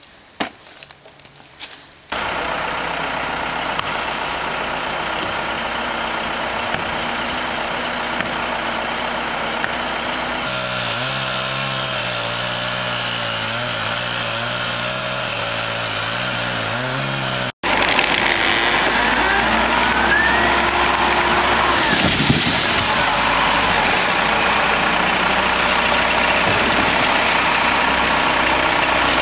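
A few knocks, then the steady running of heavy engine-driven tree-removal machinery, heard in three stretches that cut abruptly from one to the next. The engine hum shifts pitch slightly in the middle stretch, and the last stretch is louder.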